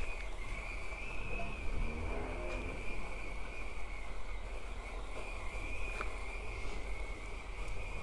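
A steady, high-pitched insect drone that wavers slightly. Under it are a low rumble and soft scratching of gloved hands working through loose potting soil.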